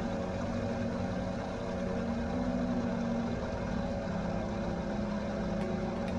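Benchtop milling machine running steadily as its 10 mm end mill makes a cut in a small metal part clamped on a rotary table.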